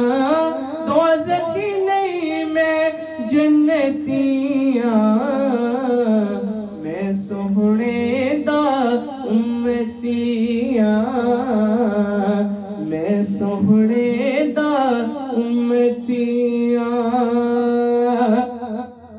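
A teenage boy singing a Punjabi naat unaccompanied into a handheld microphone, drawing out long wavering runs on held vowels with no clear words. He ends on a long held note that breaks off near the end.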